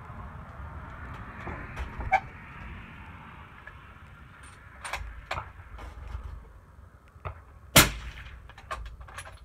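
A .22-250 bolt-action rifle fired once through a Thunder Beast 338 Ultra suppressor: one sharp suppressed shot near the end, the loudest thing heard, with a few smaller clicks and knocks of the rifle being handled before and after it. This is likely the first round through the 338 can, which gave a noticeable first-round pop.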